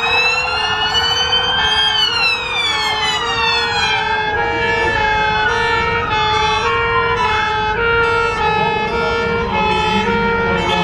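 Several fire engine sirens sounding at once. One siren wails, climbing for about two seconds and then sliding slowly down. Beneath it, several two-tone sirens keep switching between a high and a low note.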